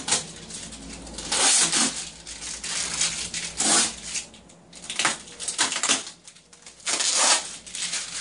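Packing tape being peeled off a 3D printer's door and plastic film in several separate rasping pulls, with plastic wrap crinkling between them.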